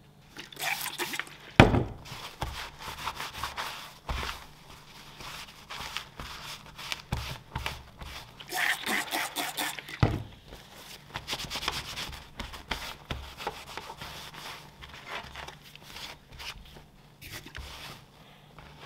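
A cloth rag rubbing and wiping over a leather axe sheath on a wooden bench, with handling noise throughout. There is a sharp knock about a second and a half in, the loudest sound, and another about ten seconds in.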